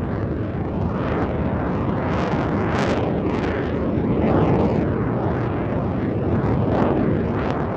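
Jet aircraft roar laid over the pictures: a loud, deep rumble of engine noise with rushing surges, two of them sharp, about three seconds in and near the end.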